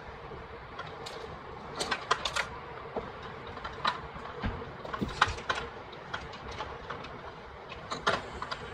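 Hard plastic toy pieces clicking and knocking as a toy Ferris wheel playset is handled, in small scattered clusters; near the end the little Ferris wheel is spun and rattles. A faint steady hum lies underneath.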